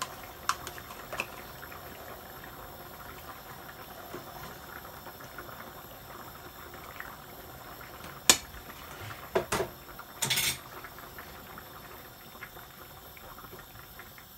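Fish curry simmering and bubbling in a frying pan, with a spoon clinking and scraping against the pan. There is one sharp clink about eight seconds in, then a few knocks and a short scrape a second or two later.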